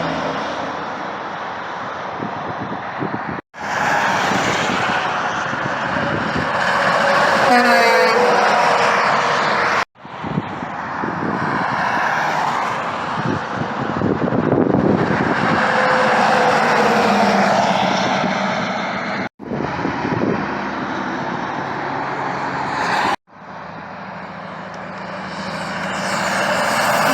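Trucks and other traffic passing on a highway, heard in several short clips that cut off abruptly four times.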